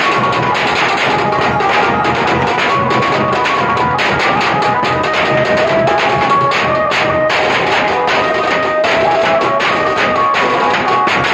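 Nashik dhol troupe drumming: several large dhol barrel drums beaten with sticks, together with smaller drums, in a loud, fast, unbroken rhythm.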